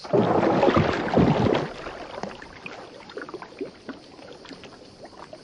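Water splashing and gurgling at the surface, loudest for about the first second and a half, then fading to faint drips and small splashes.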